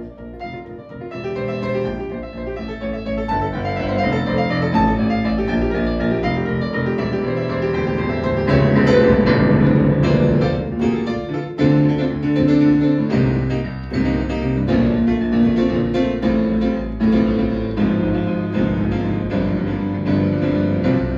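Grand piano played solo, an instrumental passage without singing. It grows louder over the first eight seconds or so into dense, hard-struck chords that carry on to the end.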